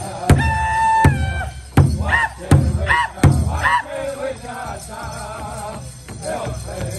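Powwow drum group singing around a large hide drum, the singers striking it together with padded sticks in a steady beat of about one stroke every 0.7 s. A high voice holds a long note near the start, then short high sliding cries follow; after about four seconds the drumbeat turns lighter.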